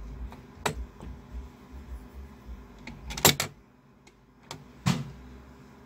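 Sharp handling clicks and knocks from fitting an Intel i5-2500K processor into a motherboard's LGA1155 socket. There are three clicks, the loudest, a double one, about three seconds in.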